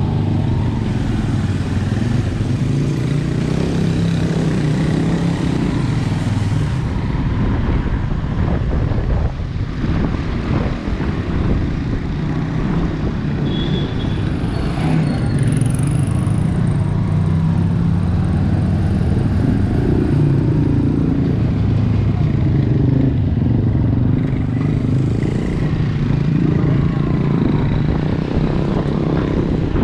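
Motorcycle engine running at low road speed, heard from the rider's seat, its pitch rising and falling as the throttle opens and closes in slow traffic.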